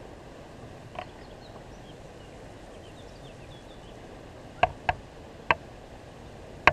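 Pondside outdoor ambience: a steady low hiss with faint, thin birdsong chirps, broken by five brief, loud, pitched calls, one about a second in and four more between four and a half and seven seconds in.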